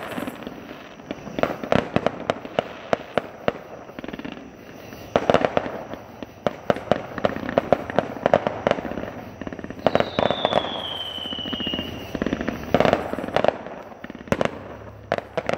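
Fireworks display: aerial shells bursting in repeated bangs in clusters, with crackling between them. About ten seconds in, a high whistle falls slowly in pitch for about two seconds.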